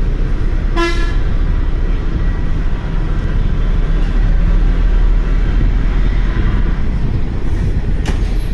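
Steady low rumble of a moving bus, with a short vehicle horn toot about a second in and a sharp click near the end.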